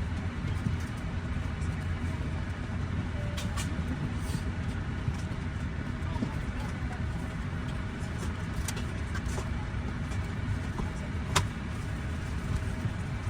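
Steady low drone of an Airbus A350 cabin before engine start, the air-conditioning and ventilation running, with faint passenger voices and a few small clicks, the sharpest about eleven seconds in.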